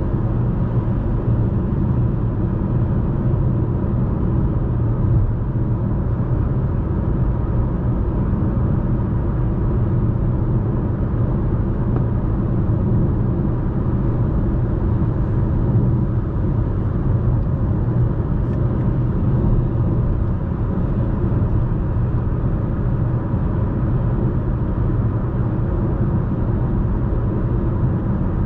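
Steady low rumble inside the cabin of a Chevrolet Malibu 1.35T cruising at about 100 km/h on a highway: road, tyre and engine noise.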